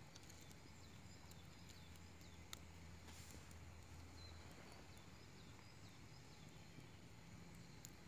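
Near silence: a wood campfire of embers and small flames crackling faintly, with a few scattered pops, and faint bird chirps in the background.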